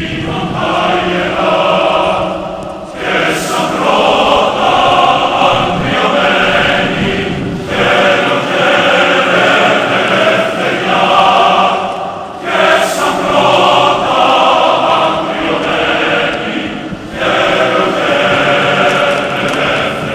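Background music of a choir singing held chords in long phrases of about four to five seconds, each phrase followed by a brief break.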